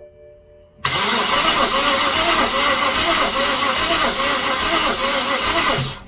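Starter motor cranking a BMW N52 inline-six with its spark plugs out, for a compression test. It cranks steadily for about five seconds, starting about a second in and stopping just before the end, and the engine does not fire. Compression reads only about 30 to 60 psi across the cylinders, far below the 200 psi or so expected.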